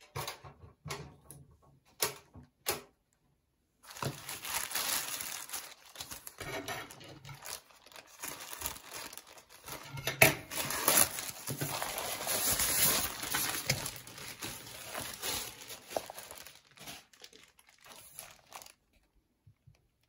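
Parcel packaging crinkling and tearing as it is opened by hand, with a few sharp clicks in the first seconds before a long spell of rustling.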